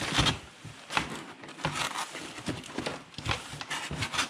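Unboxing handling noises: irregular clicks, taps and rustles as papers and packaging are handled.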